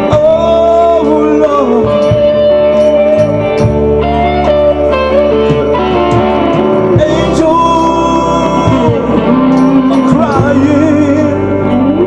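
Gospel worship music with guitar and a singing voice, its melody held and sliding between notes over a steady bass line.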